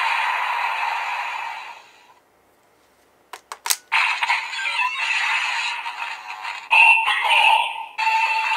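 Electronic music and sound effects from the small speaker of a DX Valen Buster toy. One sound fades out, a few sharp clicks of the toy being worked come about three and a half seconds in, and a new electronic jingle starts about a second later.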